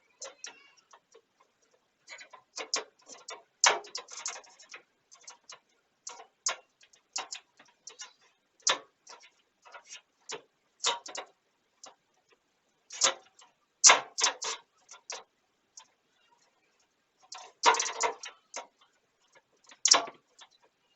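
Irregular clicks, taps and light metallic snaps of a thin metal PC I/O shield being pushed and worked into the case's rear opening, with denser bursts of clicking around four, fourteen and eighteen seconds in.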